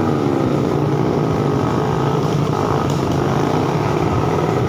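Suzuki Satria FU's 150 cc single-cylinder engine running steadily and loud through an aftermarket Trawas exhaust. Its note drops slightly in the first second, then holds.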